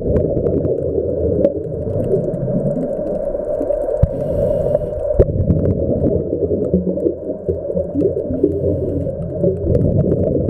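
Muffled underwater rumble and gurgle of a scuba diver's regulator and exhaled bubbles, swelling and easing, with a few clicks.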